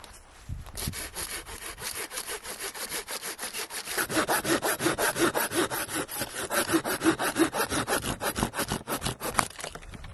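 Hand saw cutting through a dry, dead branch in fast, even back-and-forth strokes, louder from about four seconds in, stopping shortly before the end.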